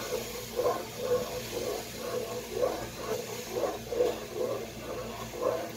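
Wooden spatula stirring a thin coconut-milk mixture in a nonstick pot, scraping and swishing in quick, even strokes, two to three a second.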